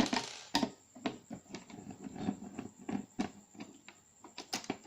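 Phillips screwdriver working the small screws of a plastic CPU cooler retention bracket on a motherboard: a brief rustle at the start, then irregular small clicks and knocks of the tool, screws and plastic.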